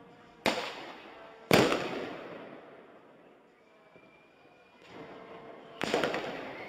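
Three loud bangs from bird-scaring pyrotechnic cartridges (Vogelschreck). Two come a second apart near the start, the second the loudest, and a third follows near the end; each trails off in a long echo.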